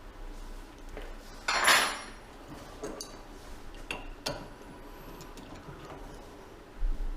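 Metal hand tools clattering and clinking against metal: a loud scraping clatter that rings on about a second and a half in, then a few sharp clinks, and a low thump near the end.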